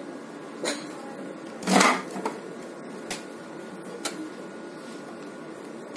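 Rotary on/off/reverse switch of an electric meat grinder being turned by hand: a few separate clicks, with one louder, longer scrape about two seconds in. The motor is not yet running.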